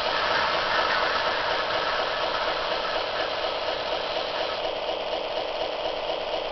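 Recorded diesel switcher engine sound from an MRC DCC sound decoder in an HO-scale GL-8 model locomotive, idling steadily and easing off slightly.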